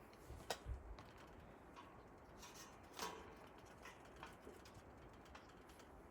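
A few faint, sharp clicks and light knocks over a quiet background, the loudest about three seconds in.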